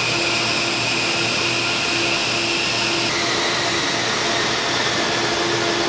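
Vacuum pumps of a fuel-injection airflow calibration bench running steadily, sucking air through the injection unit: a loud, even rush of air with a steady hum and whine. The highest whine steps down about three seconds in.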